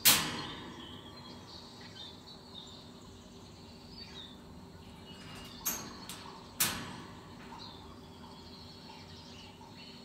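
Faint, short bird chirps scattered throughout, with a sudden loud sharp sound at the very start and two shorter ones about six and seven seconds in, over a faint steady hum.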